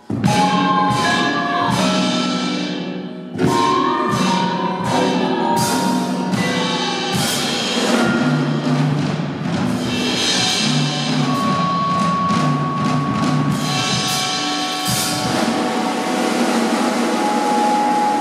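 Freely improvised chamber-ensemble music: struck percussion and mallet notes ring over sustained pitched tones. A loud hit opens the passage and another loud entry comes about three seconds in.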